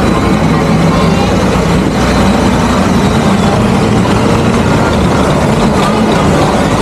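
Engine running steadily at an even, low pitch, loud and close.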